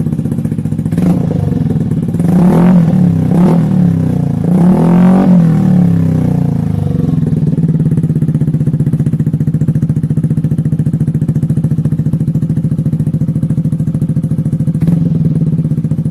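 Yamaha NMAX scooter's single-cylinder engine through an aftermarket exhaust pipe, idling and revved in several short blips during the first half, then settling to a steady idle with one small blip near the end.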